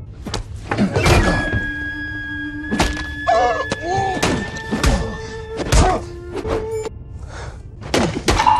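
Fight-scene sound mix: a string of thuds and knocks from two men scuffling across a table, over a film score with held notes.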